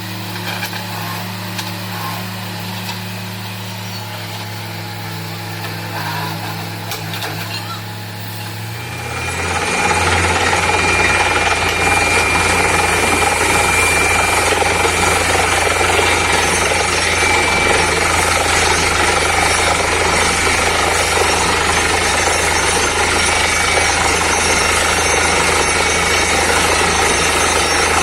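Borewell drilling rig: its diesel engine runs steadily, then about nine seconds in a much louder, dense rushing noise comes in and holds, as the compressor's air and the drill go to work under load.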